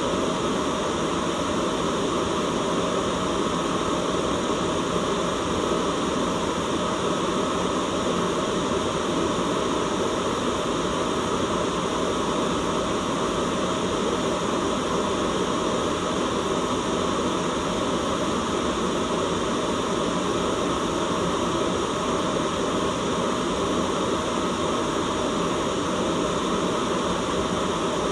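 Steady white noise: an even, unbroken hiss that stays at one level throughout.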